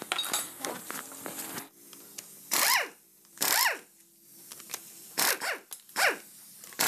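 A dog barking in short single barks, about five, each rising and then falling in pitch. Light metal clinks of hand tools on the gearbox casing come in the first second or so.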